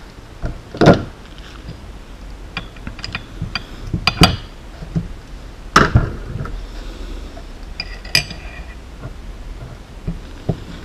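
Handling noises on a workbench: scattered sharp knocks and metallic clinks from a metal helping-hands clamp stand and a small carbon quadcopter frame being taken off it, one clink with a short ring.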